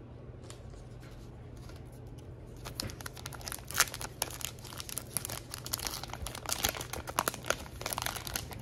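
Foil wrapper of a trading-card pack being torn open and crinkled in the hands: a dense crackling that starts about three seconds in and keeps on.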